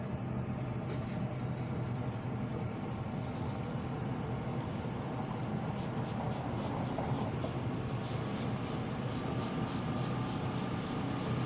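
A bandage being wrapped around a dog's hind leg. From about five seconds in there is a quick run of crinkling crackles, about four a second, over a steady low background rumble.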